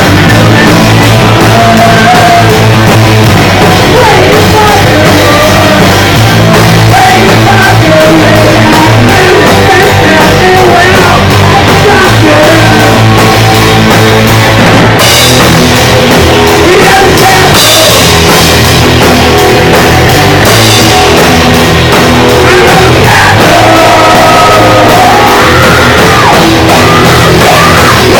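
A rock band playing loudly, with drums, guitars and shouted singing; the mix changes about halfway through as the song moves to another section.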